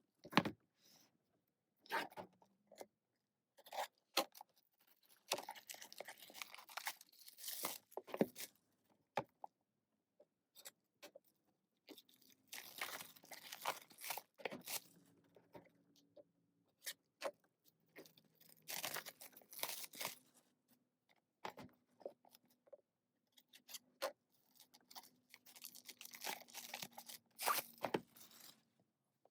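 Crinkling and tearing of packaging plastic as sealed albums are opened. It comes in irregular bursts, with scattered sharp taps and rustles of the packages being handled.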